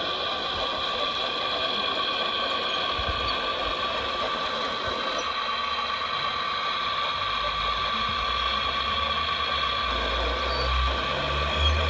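RC hydraulic excavator's hydraulic pump whining steadily as the sorting grab is worked. A low hum joins about seven seconds in and grows stronger near the end.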